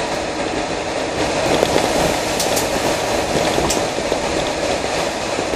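Land Rover Defender driving along a wet, puddled lane, heard from inside the cab: a steady rumble of engine and road noise with tyres on wet tarmac. A few short sharp clicks about halfway through.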